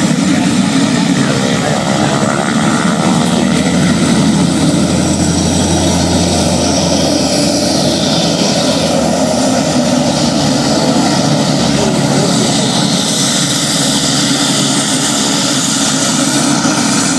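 Pilatus PC-12 NG's single Pratt & Whitney PT6A turboprop engine and propeller running at taxi power as the aircraft taxis past at close range: a loud, steady propeller drone.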